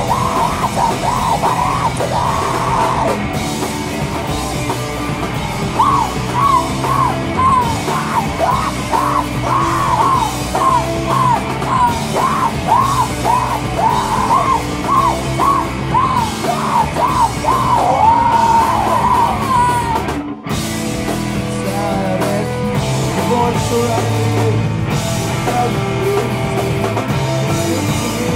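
A screamo rock band playing live, with electric guitars, bass, drums and yelled vocals. A high melodic line repeats a quick bending figure through the middle, and the whole band cuts out for an instant about two-thirds of the way through.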